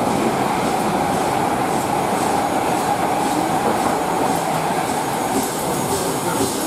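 LNER Class A3 steam locomotive Flying Scotsman standing at the platform, giving off a steady rushing hiss of steam.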